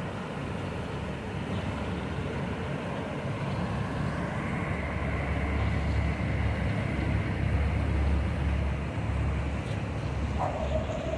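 A passing motor yacht's engines, heard as a steady low rumble with water wash, swelling about halfway through and easing near the end.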